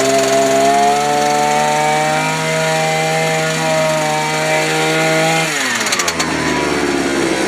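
Small engine revving up and running steadily at high speed, then dropping back down about five and a half seconds in.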